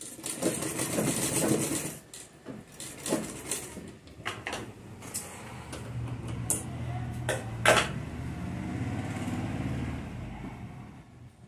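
Electric sewing machine stitching a seam through dress fabric: a steady low motor hum with quick needle strokes, fading out near the end. Sharp clicks and fabric handling sounds come between the runs.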